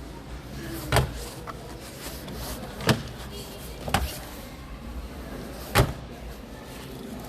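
Four dull knocks, spaced unevenly about one to two seconds apart, over a steady low background hum.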